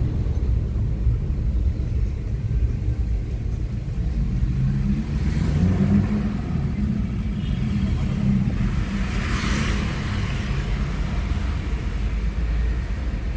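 Steady low engine and road rumble heard inside a car's cabin while driving slowly in town traffic, with a brief louder whoosh about nine seconds in, like a vehicle passing close by.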